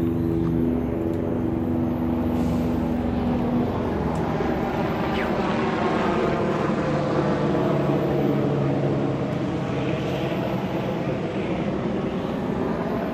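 Loud, steady drone of an aircraft passing overhead, its tones slowly shifting in pitch as it goes over.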